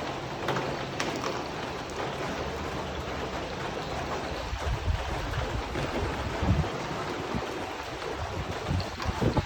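Steady rain drumming on a tin roof, with irregular low rumbles coming in from about halfway through.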